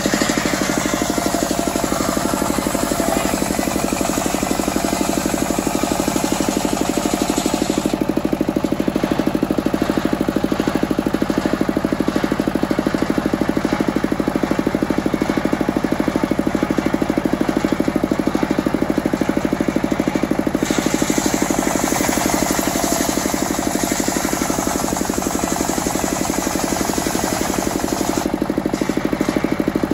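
Table circular saw ripping teak, belt-driven by a single-cylinder diesel engine that chugs steadily throughout. The bright hiss of the blade in the wood is strong for the first several seconds, eases for about twelve seconds, returns, then eases again near the end.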